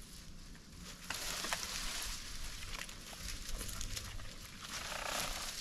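Dry leaves and brush crunching and rustling underfoot as a person works through fallen wood on the forest floor, starting about a second in, with a few sharp snaps of twigs.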